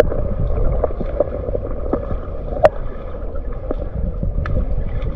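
River water gurgling and splashing, with a low rumble of wind on the microphone and scattered small splashes or knocks.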